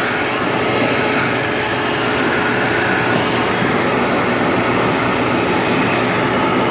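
Vacuum cleaner running steadily with a narrow crevice attachment, its nozzle being worked in over a refrigerator's condenser coils to suck out dust.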